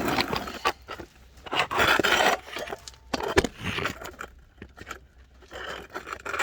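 Metal scraping and a few sharp clicks as a mower blade and its bolt hardware are handled and seated on the deck spindle, irregular and without any power tool running.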